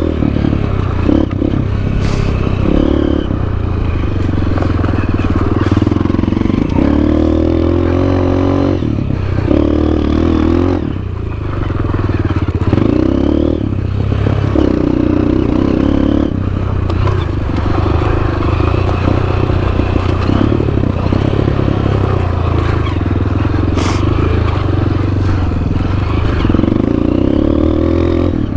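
Honda CRF230F's single-cylinder four-stroke engine running under way, its pitch repeatedly rising with the throttle and dropping back as the gears change. A couple of sharp knocks are heard, about two seconds in and near the end.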